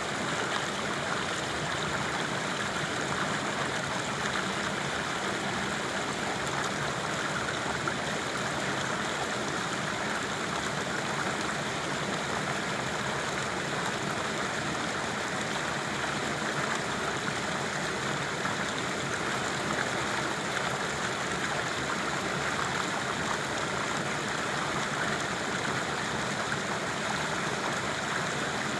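Running water: a steady rushing flow that keeps an even level throughout.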